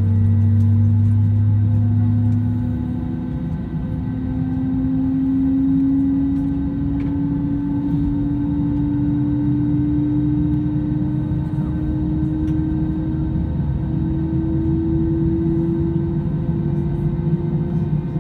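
Airbus A320 jet engines running, heard inside the cabin: a low rumble with a steady whine that slowly rises in pitch, and a deeper hum that drops away about three seconds in.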